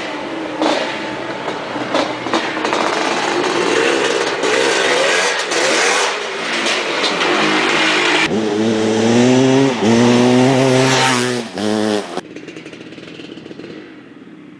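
Dirt bike engine under way with the revs rising and falling through the gears, mixed with wind and road noise. At about eight seconds the sound cuts to a bike being revved in several sharp blips, and near twelve seconds it drops back to a quieter idle.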